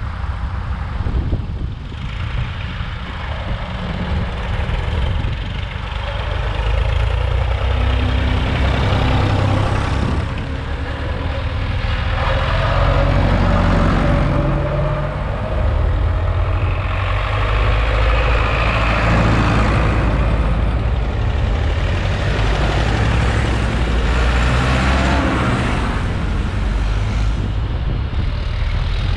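Vintage farm tractors driving past one after another, their engines running loud and low. The engine note rises and falls as each one goes by, about a dozen seconds in and again near the end.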